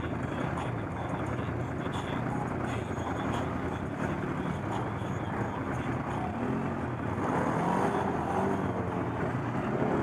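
ATV engine running while the quad is ridden, its pitch rising and falling with the throttle. The revs climb and the sound gets a little louder about seven seconds in.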